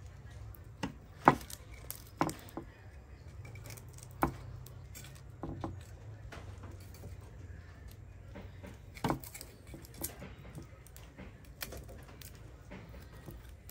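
Irregular knocks and clicks from cookware and utensils being handled, with a few sharper knocks among quieter taps over a low steady hum.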